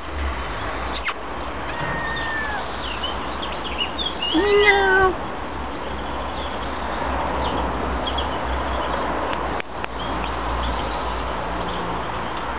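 A kitten meows once about four seconds in, a single call of under a second, over a steady background hiss and low hum.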